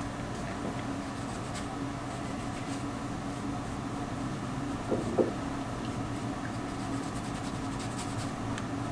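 Makeup brush rubbing softly on the skin and powder, with faint scratchy strokes, over a steady low hum in the room. A brief soft knock about five seconds in.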